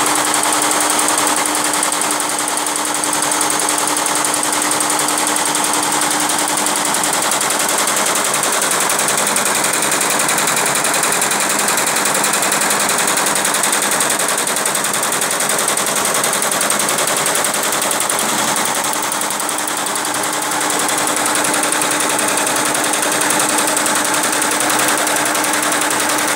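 Tajima multi-head embroidery machine stitching, its needles clattering in a rapid, steady rattle over a faint steady hum.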